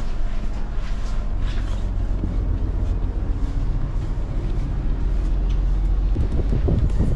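Steady low rumble of a ship underway. Out on the open bridge wing, gusts of wind buffet the microphone near the end.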